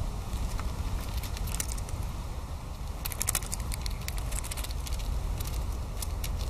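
Outdoor background noise: a steady low rumble, with scattered light crackles and clicks, a cluster of them about halfway through.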